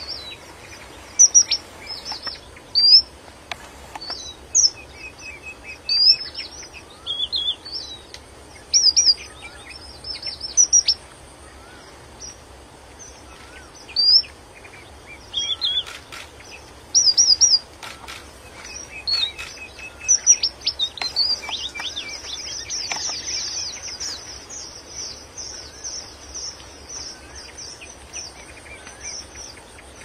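Red avadavat (strawberry finch) calling: thin, high-pitched chirps, singly and in quick clusters, that run into continuous fast twittering from about twenty seconds in.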